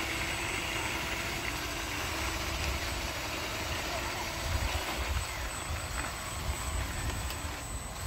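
Electric drive motor of a radio-controlled toy bulldozer running as it crawls on its tracks through mud, over a steady hiss and an uneven low rumble.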